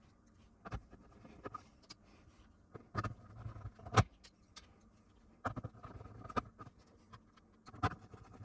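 Scattered light clicks and knocks of a screwdriver and screws working on a ZX81's plastic case, with a sharper knock about four seconds in.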